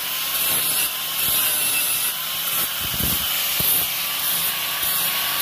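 Angle grinder with an abrasive disc grinding down a weld bead on the corner joint of thin square steel tube: a steady harsh grinding hiss over a slightly wavering motor whine.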